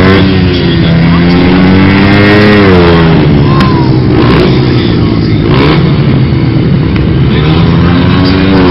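Speedway bikes' single-cylinder 500 cc engines running at low speed, more than one at once, the note rising and falling as the riders blip the throttles, with a rise to a peak about two and a half seconds in.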